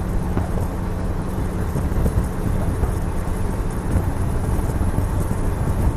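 A vehicle driving on a dirt road, heard at an open side window: a steady rumble of engine and road noise with wind rushing past.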